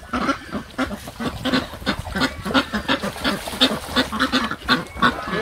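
Farm animals calling in a rapid run of short calls, about four a second.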